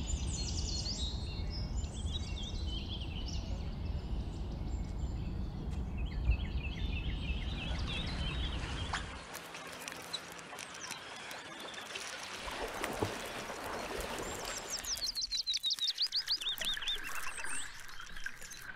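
Outdoor natural ambience of wild birds chirping over a low rumble, which drops away about halfway through to a lighter hiss. Near the end a bird gives a fast run of falling chirps.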